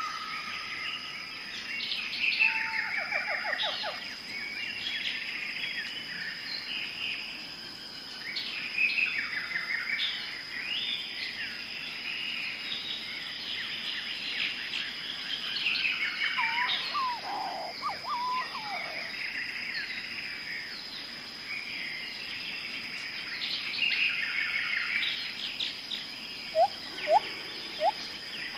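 A colony of weaver birds chattering, with many overlapping buzzy calls, chirps and rapid trills. Near the end come a few louder, short rising whistles.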